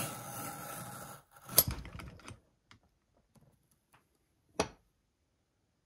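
Leather strap pulled through a bench-top leather splitter, the blade shaving it for about a second, followed by a sharp knock with a short scrape. A single sharp click comes a few seconds later.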